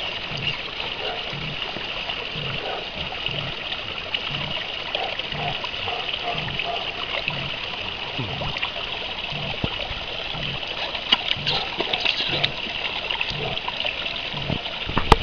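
Pool water splashing and trickling steadily close to the microphone, with sharper splashes around the last third. Under it, a dog panting in a steady rhythm, about two breaths a second.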